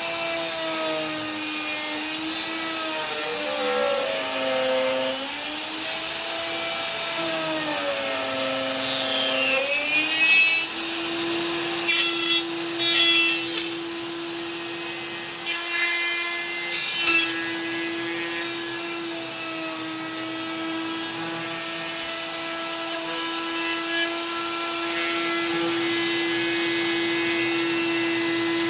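Wood router fitted with a saw wheel, its motor running with a steady high whine while cutting wood. The whine sags in pitch and recovers several times in the first ten seconds as the blade takes load, with short bursts of rasping cutting noise in the middle, then it runs steadily again.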